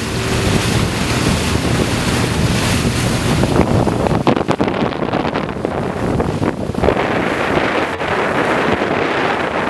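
Wind blowing hard across the microphone over the rush and splash of choppy water around a sailing boat under way, with a few sharper gusts partway through.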